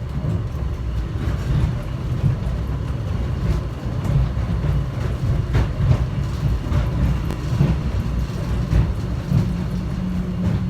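Automated airport people-mover train running, heard from inside the car: a steady low rumble with scattered clicks and rattles.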